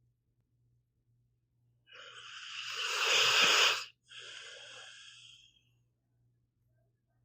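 A sleeping pit bull snoring: one long, hissing breath that grows louder for about two seconds and stops abruptly, then a shorter, quieter breath that fades out.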